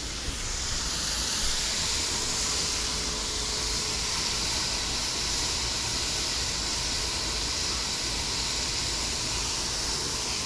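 Smash-burger patties sizzling steadily on a hot griddle.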